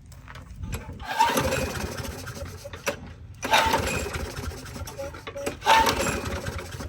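Walk-behind lawn mower being pull-started: three pulls about two seconds apart, each a loud surge that fades away without the engine staying running.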